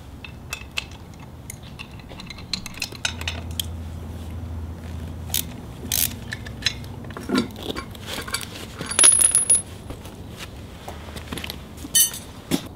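Scattered metallic clinks and taps of a wrench and wheel bolts as the rear wheel of a BMW R1200GS is unbolted from its hub, with one clink ringing out about nine seconds in.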